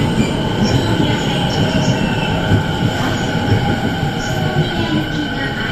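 Rinkai Line 70-000 series electric train pulling in and slowing at the platform: a low rumble from the cars with steady high whines and short high squeaks from the wheels and brakes.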